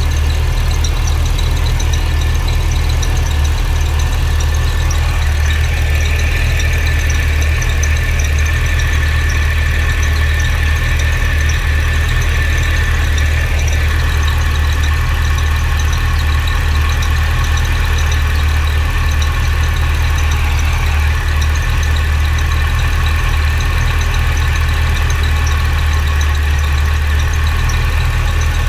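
Steady low rumble of wind from a shop fan blowing across the microphone. Through it runs the steady whine of a Cadillac CTS-V's electric intercooler coolant pump, jumpered on at the fuse box to prime and circulate coolant through the intercooler system; the whine comes up about five seconds in.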